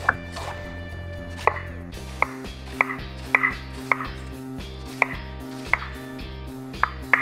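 Chef's knife slicing red cabbage thinly on a wooden cutting board: about ten sharp knocks of the blade on the board, unevenly spaced.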